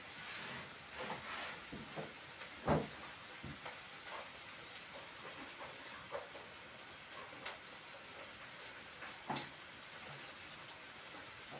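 Wet cloth rubbed across a wooden slab tabletop, then water splashing as the cloth is rinsed in a plastic basin, with a few sharp knocks, the loudest about three seconds in.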